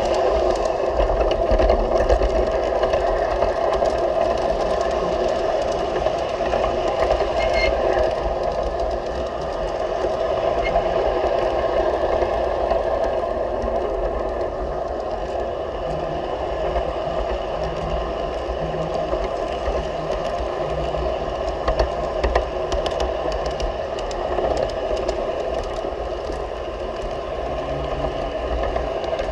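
G scale model train running along garden track, heard from a camera riding on the train: a steady whir of the electric motor and gears, with the wheels clicking and rattling over the rails.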